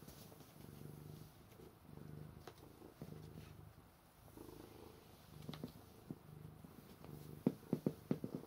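Domestic cat purring as it is stroked, a low hum that swells in waves about once a second. Near the end comes a quick run of sharp clicks.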